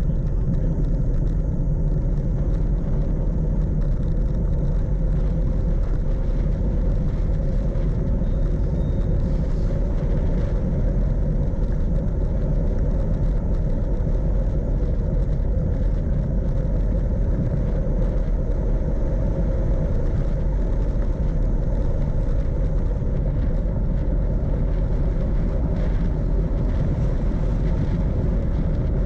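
Steady low rumble of wind on the microphone and bicycle tyres on asphalt during a downhill ride, unchanging throughout.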